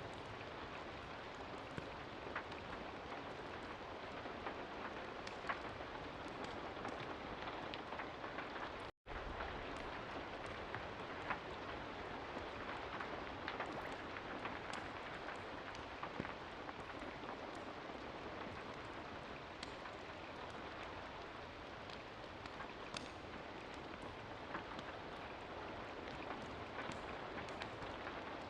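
Steady rain pattering, with many small sharp ticks and crackles scattered through it. The sound cuts out completely for a split second about nine seconds in.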